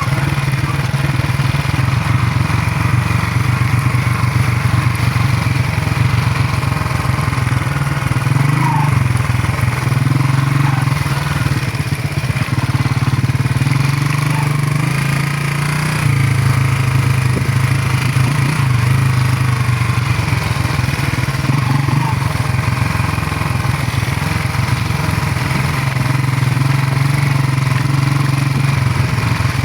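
Motorcycle engine running steadily, its pitch dipping and rising a little midway as the engine speed changes.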